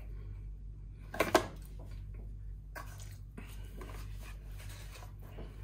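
Cardboard takeaway food boxes handled and set down on a wooden table, with one loud short crackle about a second in and a few fainter knocks and rustles after, over a low steady hum.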